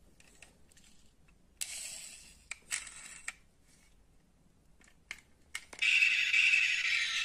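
Light clicks and scrapes of a die-cast toy car being handled and turned over in the fingers, a few sharp clicks among them. Near the end a much louder steady whirring buzz starts and keeps going.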